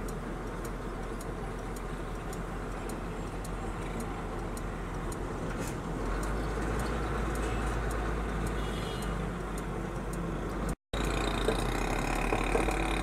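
Truck engine running with road noise inside the cab as the truck turns around, its low rumble growing heavier about six seconds in. A faint, regular ticking about twice a second runs under it: the turn indicator. The sound cuts out for a moment near the end.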